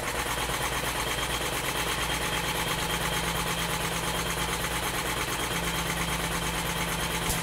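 A machine motor running with a fast, even pulsing and a faint steady whine, starting abruptly and cutting off near the end.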